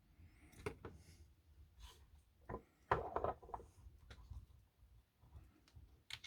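Small clicks, taps and scrapes of tools and small parts being handled on a workbench, with the loudest cluster about three seconds in.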